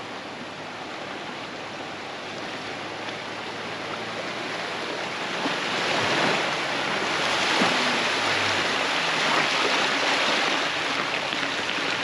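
Water rushing and splashing as an off-road vehicle drives through a deep water crossing, growing louder from about halfway in, with the engine faint underneath.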